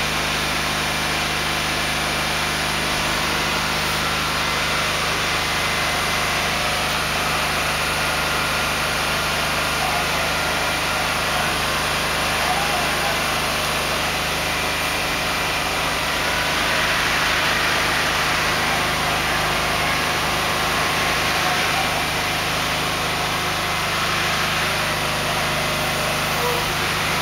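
Engine of a multi-axle heavy-haulage transporter running steadily as it creeps along under a long bridge section, swelling slightly about two-thirds of the way through.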